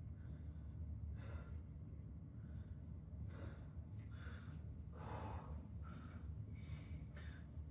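A man breathing hard from exertion: a run of short, forceful breaths and gasps, coming about once a second in the second half, over a steady low hum.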